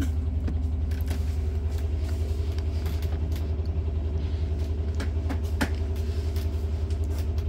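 Wella hair-dryer hood's blower running with a steady low hum, with a few light clicks and knocks.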